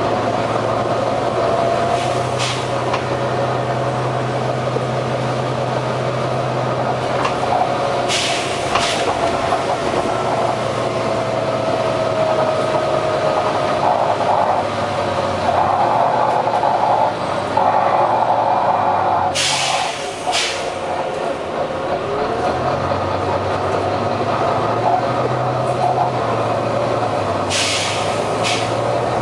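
Volvo B9TL double-decker bus's diesel engine running with a steady drone and whine, broken by short sharp hisses about seven times. This random hissing from the engine is taken by the owner for a dodgy turbo.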